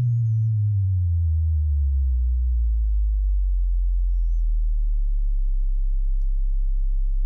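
Self-oscillating resonant low-pass filter of the Logic ES P software synth, fed with noise, sounding a clean sine-like tone. It glides down in pitch as the filter cutoff is pulled down over the first two seconds or so, then holds as a deep, steady sub-bass note.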